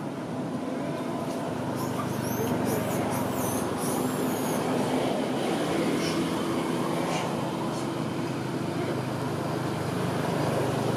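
Steady low hum of a motor vehicle's engine running throughout, with a few short high chirps about two to four seconds in.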